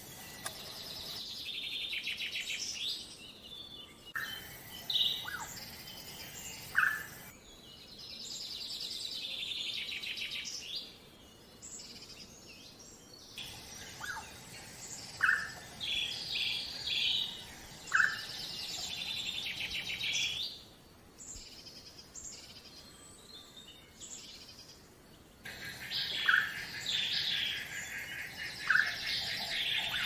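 Forest birdsong: several birds chirping and trilling high, with short sharp call notes every few seconds. The sound changes abruptly several times, as if cut together from separate recordings.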